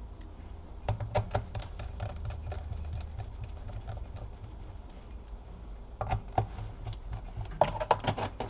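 Light clicks and taps of a laptop and small tools being handled during reassembly, in a cluster about a second in and a denser run from about six seconds in, over a low steady hum.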